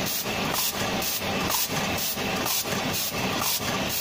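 Automatic rotary cup-printing machine running, a steady mechanical noise that pulses evenly about three times a second as its mandrel wheel turns.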